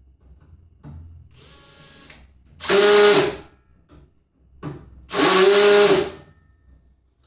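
Cordless drill-driver driving screws to fix a handle to a battery case: a soft, short run about a second in, then two loud runs of about a second each, near three and five seconds in.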